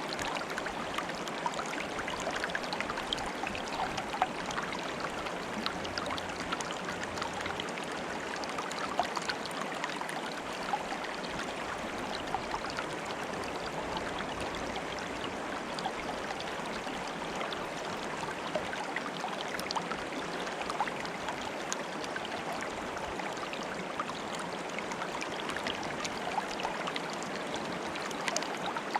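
Water in a stream bubbling and trickling steadily, with many small gurgles and splashes.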